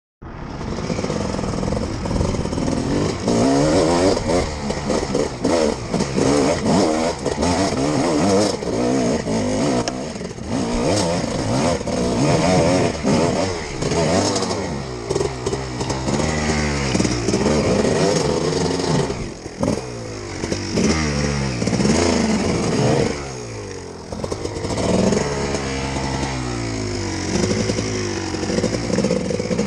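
Off-road dirt bike engine revving up and down without pause on a steep rocky climb, the throttle rising and falling over and over and easing off briefly twice about two-thirds through. Knocks and clatter from stones and the bike come through over it.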